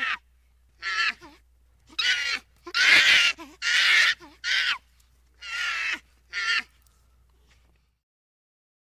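A series of about eight harsh animal calls, each under half a second, spaced unevenly and stopping about seven seconds in.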